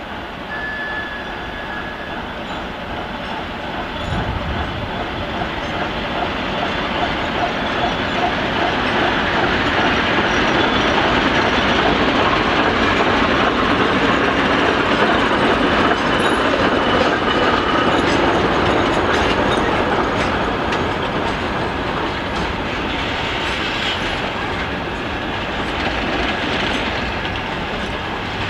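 Freight train passing close by behind a diesel locomotive: the sound builds as the locomotive approaches and goes by, then the wagons roll past with their wheels clacking over the rail joints.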